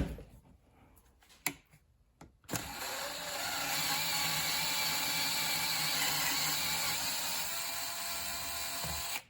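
A sharp click, then a smaller one, then a power drill motor running steadily for several seconds while drilling out the broken exhaust bolt hole in the chainsaw cylinder.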